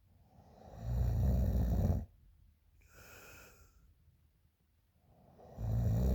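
A woman snoring loudly in her sleep: two rough, low snores about five seconds apart, each lasting about a second, with a much quieter breath between them.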